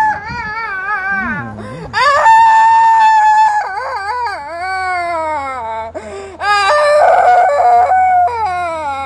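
A woman wailing in long, high, wavering cries, several in a row, some sliding down in pitch.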